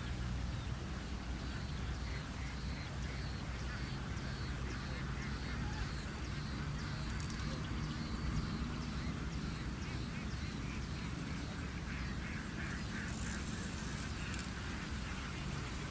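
A rapid series of short, high bird calls, about three a second, over a steady low rumble; the calls fade out about halfway through.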